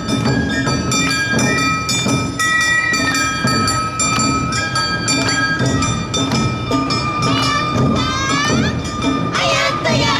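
Awa odori festival band playing: a bamboo flute holding long high notes over a steady beat of drums and a clanging hand gong. Near the end, dancers' voices join in with rising and falling shouted calls.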